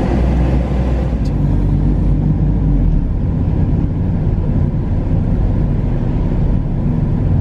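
Car driving at low speed with the roof down: a steady low rumble of engine and road noise heard from inside the open cabin.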